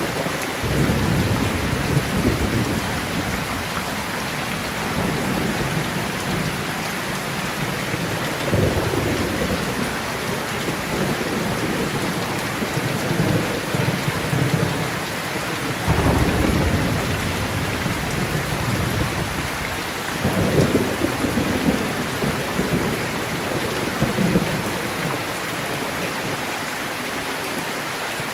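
Steady heavy rain with rolling thunder, several low rumbles swelling and fading, the sharpest about a third, halfway and two thirds of the way through.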